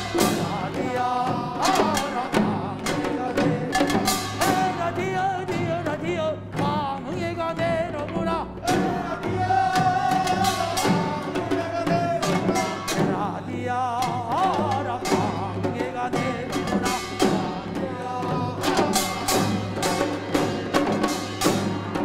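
Korean folk field-song (deulsori) music: buk barrel drums beaten in a running rhythm with group voices singing over them.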